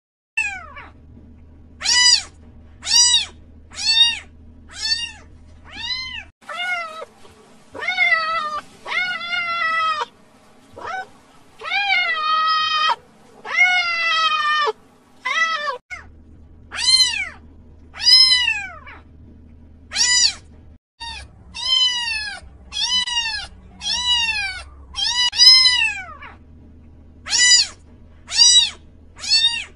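Cat meowing over and over: short meows that rise and fall in pitch, about one a second, with a run of longer, lower meows in the middle.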